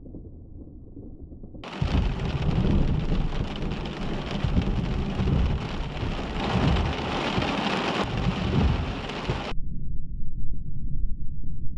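Thunder rumbling after a nearby lightning strike, with steady rain. For the first two seconds and again from near the end, only a muffled low rumble is heard; in between, the full sound of rain and rolling thunder comes through loudly.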